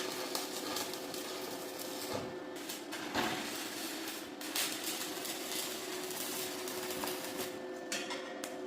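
Picture-frame pinning machine at work: a steady hum with several sharp knocks and clacks at irregular intervals.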